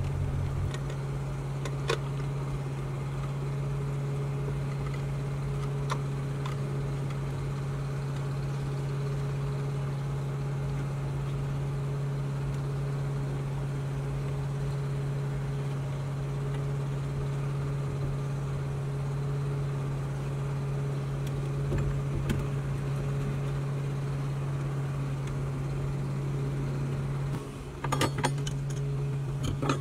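Steady, low machine hum like a small engine running at constant speed. A few faint clicks and knocks, more of them near the end, come from the plastic fuel pump module being handled and pressed into the tank opening.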